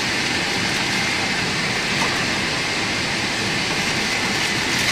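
Steady airliner cabin noise inside a Boeing 747-8: an even rushing hiss of air and machinery, with a faint steady high tone running through it.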